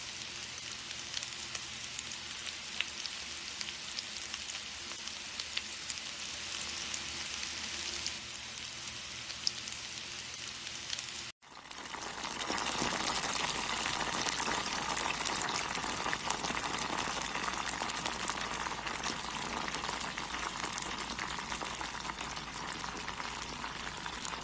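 Onion rings sizzling in oil in a frying pan, a fine crackle with scattered pops. Just before halfway the sound breaks off briefly and changes to small floured whole fish pan-frying in oil, a louder, fuller sizzle.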